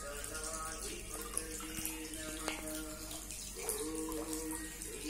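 A melody of held notes playing in the background, stepping from one pitch to the next, over a steady high hiss like running water.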